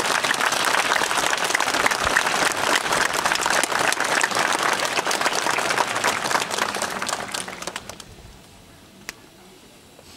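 A large seated crowd applauding, a dense patter of many hands clapping that dies away about eight seconds in. A single sharp tick follows near the end.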